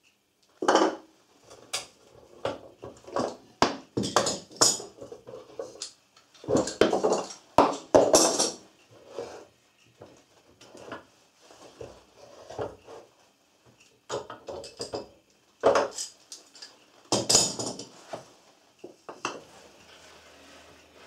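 Metal bar clamps being unscrewed, pulled off a glued box and laid down on a wooden workbench: irregular clicks, clanks and clatter, with knocks of wooden spacer blocks. The loudest clattering comes about seven and again about seventeen seconds in.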